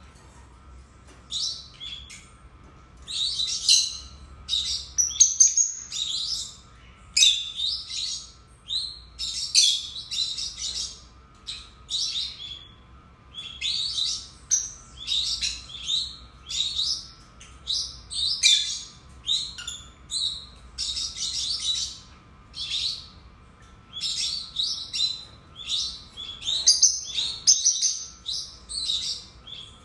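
A pair of peach-faced lovebirds chirping: quick runs of high-pitched calls with short pauses between them.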